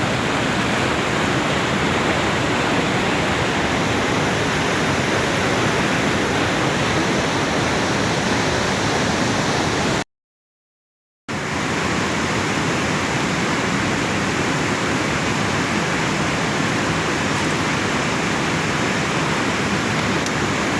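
Fast-flowing river rushing steadily over rocks, a loud even roar of water. The sound cuts out completely for about a second near the middle, then resumes unchanged.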